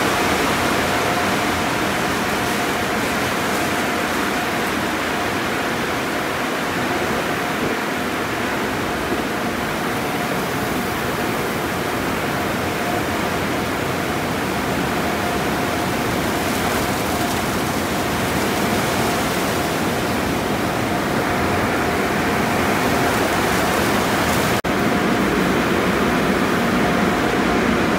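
Conveyor car wash tunnel equipment running: a steady rush of water spray and machinery with a faint steady whine, broken once near the end.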